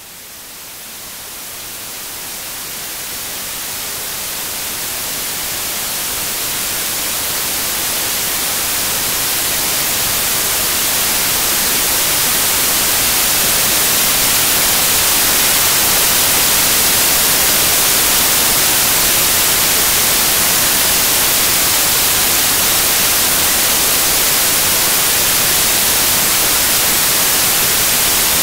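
Steady white-noise static hiss, strongest in the highs, swelling in gradually over the first dozen seconds and then holding level.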